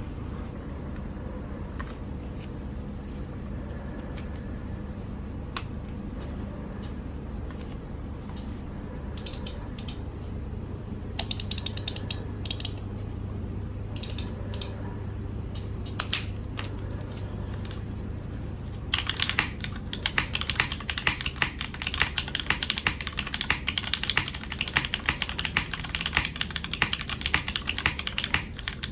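Custom mechanical keyboard with lubed Cherry MX Black linear switches in an aluminium plate, with GMK keycaps: a few scattered single keystrokes, then from about two-thirds of the way in, fast continuous typing.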